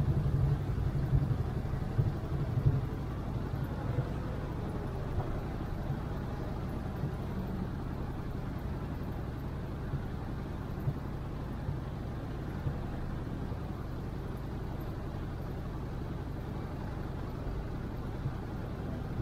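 Motorcycle engine idling in stop-and-go traffic, with the low steady rumble of other vehicles' engines around it; a little louder in the first few seconds, then even.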